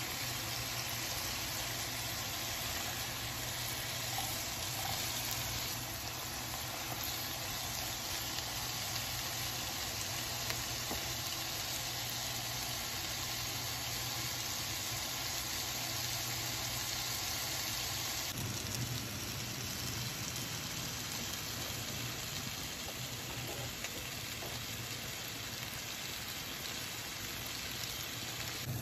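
Sliced bitter melon and onion sizzling as they stir-fry in a frying pan, a steady frying hiss with a low hum underneath.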